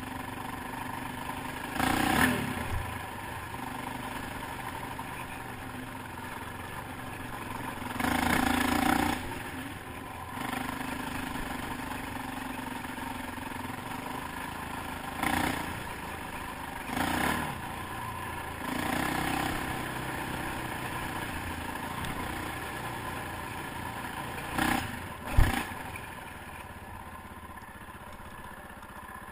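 ATV engine running steadily along a dirt trail, rising in several short bursts of throttle. A single sharp knock comes near the end.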